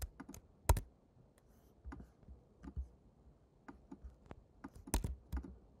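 Scattered, irregular clicks of a computer keyboard and mouse as parameter values are entered, about a dozen short taps with long gaps between them. The sharpest click comes just under a second in, and a small cluster comes near the end.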